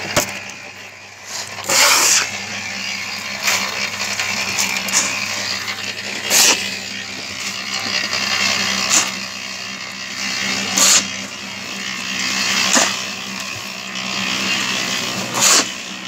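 Small electric cement mixer running, its drum turning with a steady motor hum and the rushing churn of a wet sand-and-gravel mix. Over it come sharp gritty scrapes and tosses as shovelfuls of sand and gravel are thrown into the drum, about one every couple of seconds.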